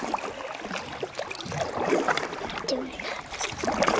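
Kayak paddles dipping and pulling through calm river water, with irregular splashes and water lapping along the hull.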